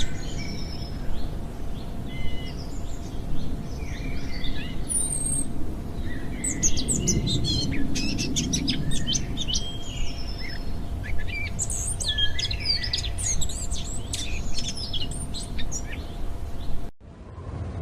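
Many birds chirping and trilling in overlapping short calls over a low, steady background noise. The birdsong cuts off abruptly about a second before the end.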